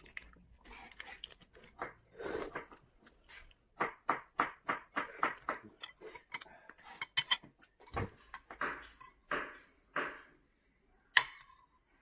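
Balut eggshell being cracked and picked off by hand over a ceramic bowl: a run of short crackles and clicks. A sharp clink of a metal spoon on the bowl comes near the end.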